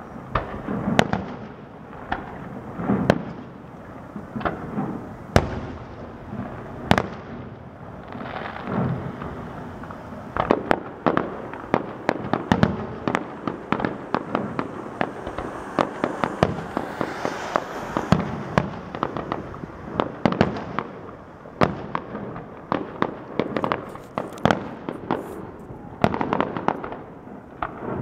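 Aerial fireworks going off: scattered single bangs at first, then from about ten seconds in a dense run of rapid bangs and crackling, thinning out again near the end.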